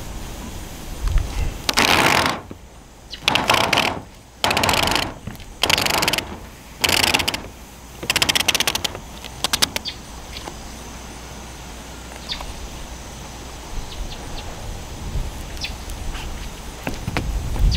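Adhesive roofing tape being pulled off its roll in about six quick ripping pulls over the first half, then quieter with a few faint ticks.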